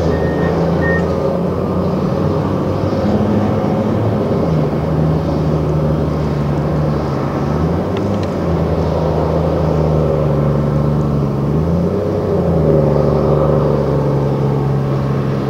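Large diesel engine of heavy quarry machinery running steadily, its pitch dipping and rising several times.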